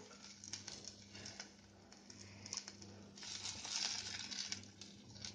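Wooden spatula scraping and tapping against a non-stick kadai as a brinjal slice shallow-fries in a little oil. Scattered light clicks, with a louder spell of scraping about three seconds in.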